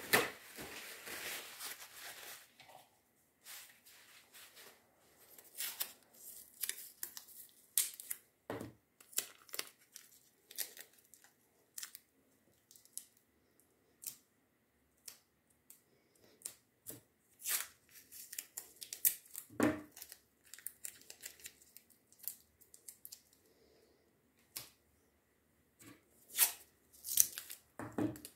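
Hands tearing and crumpling small soft pieces of material, a long rustle at the start and then scattered crackles and clicks, with a few soft knocks on the table.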